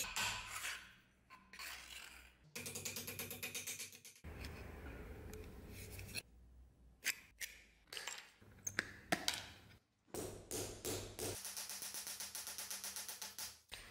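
Small hammer tapping brass fittings in runs of quick, light blows: a brass ferrule on a wooden sword grip, and a brass strip on a steel anvil. Between the runs there are a few single sharp clicks from the metal being handled.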